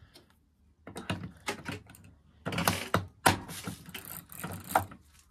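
Programme selector dial of a Samsung washing machine being turned, clicking rapidly through its detents in three runs.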